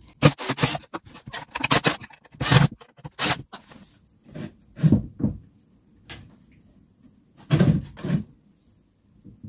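Irregular knocks, taps and clatter of wooden framing battens and tools being handled. A quick run of clicks and knocks comes in the first few seconds, then scattered single knocks, and a louder cluster of knocks near the end.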